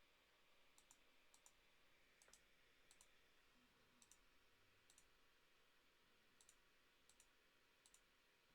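Faint computer mouse clicks, about nine at irregular intervals, each a quick double tick of button press and release, over near-silent room tone.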